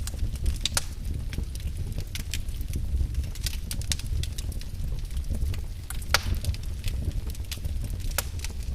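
Wood fire in a fireplace crackling: sharp pops and snaps at irregular moments, a few louder ones, over a steady low rumble of the burning fire.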